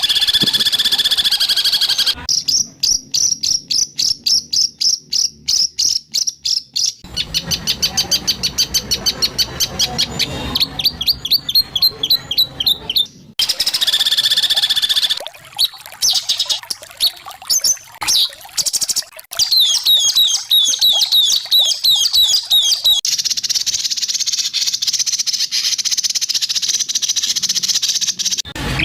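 White-rumped shama (murai batu) singing loud, rapid runs of harsh repeated notes, the 'tembakan' bursts, with the phrase changing abruptly every few seconds as on an edited training track.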